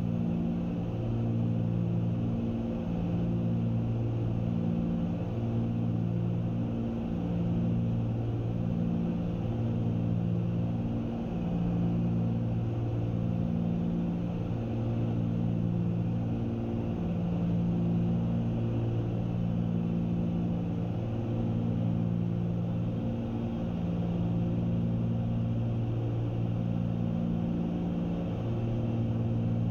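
Cabin sound of a Cessna 310's twin piston engines and propellers in cruise flight, a steady drone with a slow, regular throbbing beat about once every second and a half: the two propellers are turning at slightly different speeds, not quite synchronized.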